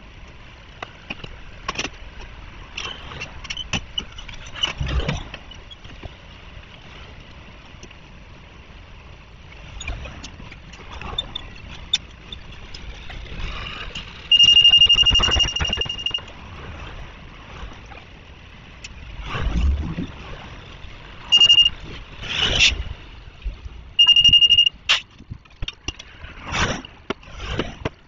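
Street and road-repair noise: vehicles passing, scattered knocks, and a high steady electronic beep three times, the first lasting nearly two seconds and the others shorter.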